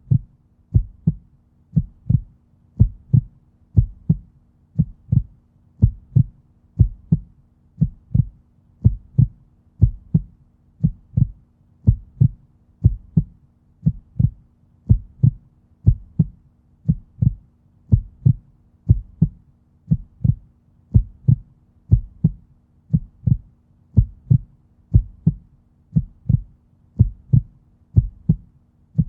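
Heartbeat sound effect: a steady lub-dub of paired low thumps, about one beat a second.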